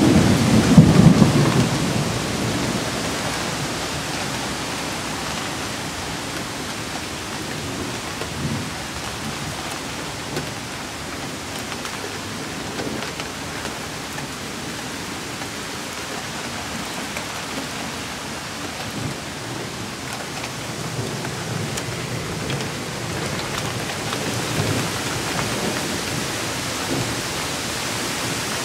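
Thunderstorm: a loud low rumble of thunder dies away over the first two seconds, then steady rain falls, with a few fainter low rumbles rising briefly about eight seconds in and again near the end.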